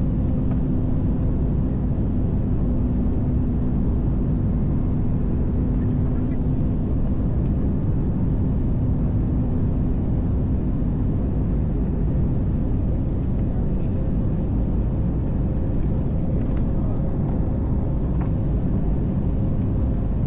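Steady cabin noise of a jet airliner on low final approach, heard from a window seat over the wing. It is an even low rumble with a steady hum that fades about seven seconds in.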